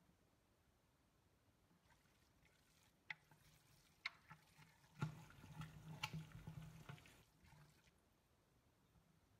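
Faint wet squishing of hands kneading a moist rice-and-nuruk makgeolli mash in a glass jar, with a few soft clicks between about three and six seconds in.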